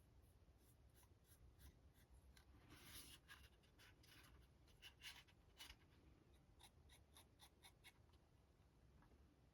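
Faint scratching and tapping of a paintbrush working paint onto a 3D-printed figure: a run of short strokes, with a louder swish about three seconds in.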